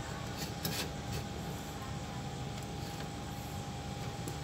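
A few light clicks and taps as a plastic magnetic contactor is handled and set against a metal mounting plate, over a steady low hum.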